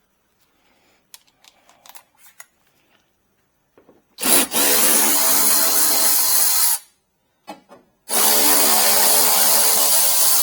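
Power drill driving a 10 mm socket, run twice for about two and a half seconds each to back out two 10 mm bolts. A few light clicks of the tool being handled come first.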